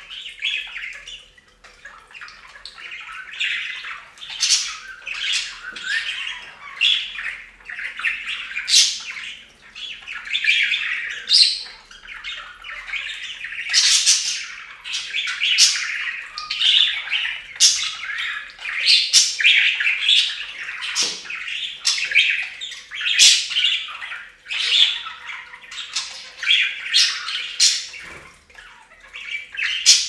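Budgerigars chattering continuously, with frequent sharp squawks and chirps.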